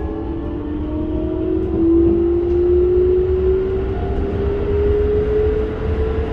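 A Keikyu 1000 series train's Toyo IGBT-VVVF inverter and traction motors whine in one tone that rises slowly in pitch as the train gathers speed. Under it is the low rumble of the wheels on the rails, heard inside the passenger car.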